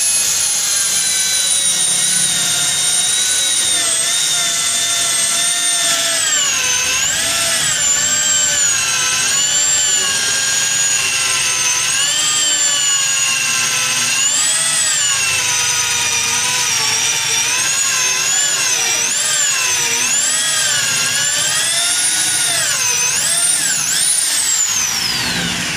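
Electric drill with a hole saw boring the doorknob hole through a wooden door. The motor whine keeps dipping in pitch as the cutter bites and picking back up. Near the end it winds down with a falling pitch.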